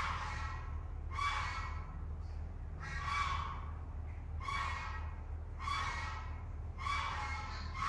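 A short call repeated roughly every second to second and a half, over a steady low hum.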